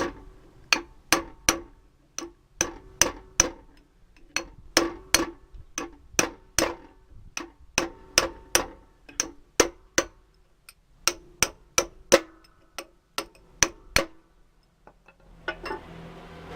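Hammer blows on a steel drift knocking the inner wheel bearing out of a Ford Escort's rear brake drum: sharp metallic taps, about two a second, each with a short ring, with a couple of brief pauses.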